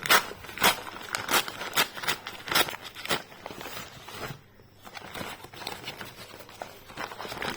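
Packaging being handled: a run of sharp crackles or snaps about two a second for the first three seconds, then softer rustling.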